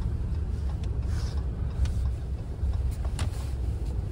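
Steady low road and engine rumble inside a Ram pickup's cab as it drives slowly, with a few faint clicks.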